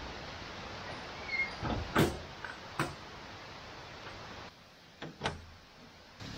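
Several sharp knocks and clunks of objects being handled, the loudest about two seconds in and two more near the end, over a steady hiss.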